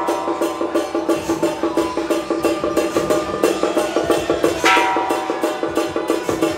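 Traditional temple-procession percussion: a fast, even beat of woodblock-like strikes, with one ringing metal stroke about two-thirds of the way through.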